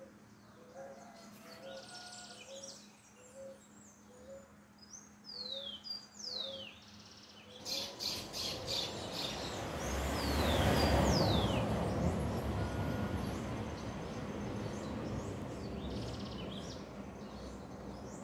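Birds calling in the trees: a short low note repeated about once a second, and sharp falling whistles that come in pairs, twice. About eight seconds in, a broad rushing noise swells up, is loudest a few seconds later, then slowly fades.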